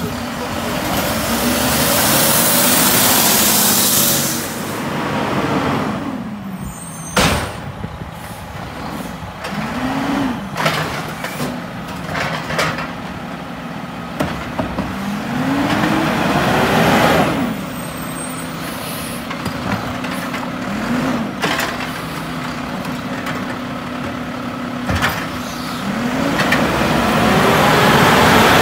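Mack LR garbage truck with a Heil automated side-loader body: the diesel engine runs with an air hiss lasting a few seconds near the start, then revs up and falls back several times as the hydraulic arm works and the truck pulls ahead. It grows louder near the end as it comes close.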